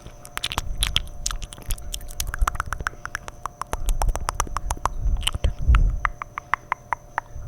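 Close-miked wet mouth sounds: fast, irregular tongue clicks, smacks and crackles, several a second, with a brief low muffled rumble about three-quarters of the way through.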